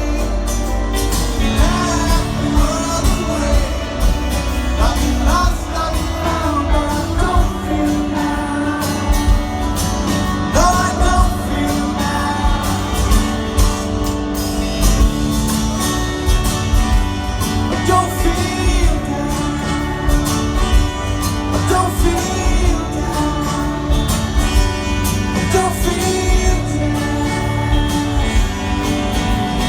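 A rock band playing live with a male lead vocal over guitars and drums, the singing line moving through the whole stretch.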